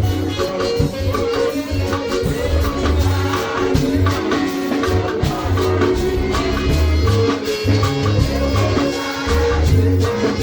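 Music with a steady beat: bass notes, sustained pitched chords and light shaker-like percussion, without clear singing.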